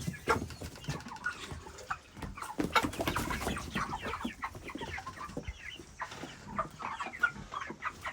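A flock of young white broiler chickens, about five weeks old, clucking and cheeping in many short overlapping calls.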